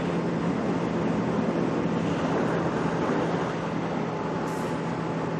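Kawasaki Ninja 650R's parallel-twin engine running steadily while riding, a constant low hum under an even rush of noise that eases slightly a little past halfway.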